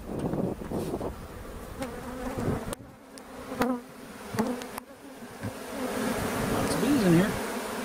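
Honeybees buzzing en masse around a trap-out nuc box packed with bees, with a few passing buzzes that rise and fall in pitch. The buzz grows louder from about five seconds in.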